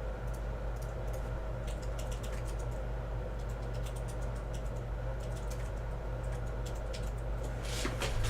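Typing on a computer keyboard: irregular key clicks, with a louder run of clicks near the end.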